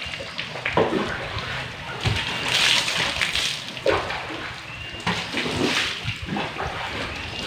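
Water sloshing and splashing in several short bursts, as a bucket is dipped and emptied at a basin.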